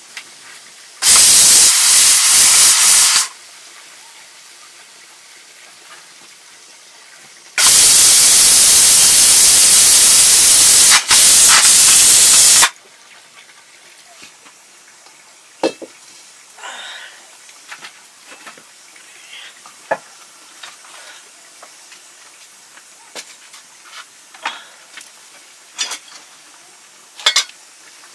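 Two spells of loud, even hissing from cooking on the fire: the first about two seconds long, the second about five seconds with a brief break near its end, each starting and stopping abruptly. A few light clicks and knocks follow.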